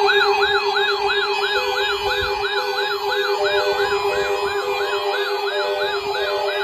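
Electronic siren wailing in fast repeated sweeps, about three a second, over a steady low tone and short repeated beeps.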